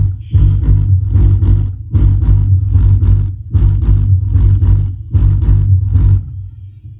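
8-inch active bass tube subwoofer playing music in bass-only mode: a loud pulsing bass beat, about two hits a second, with little above it. The beat drops away near the end.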